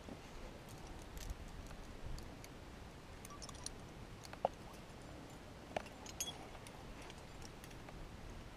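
Faint scattered clicks and light clinks of climbing gear and rope, with two sharper clinks about four and a half and six seconds in.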